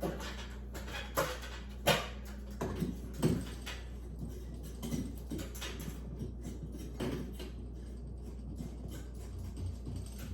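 Scattered short knocks and clicks of objects being handled, the sharpest about two seconds in, over a steady low hum.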